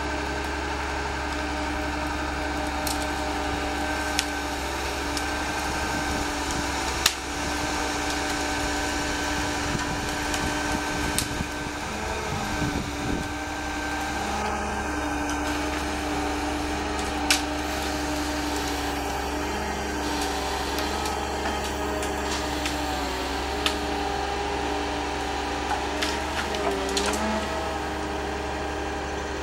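Engine and hydraulics of the machine working a LumberJack 450 shear gripper, running at a steady pitch, with occasional sharp cracks of wood. The pitch dips and wavers briefly near the end as the machine takes load.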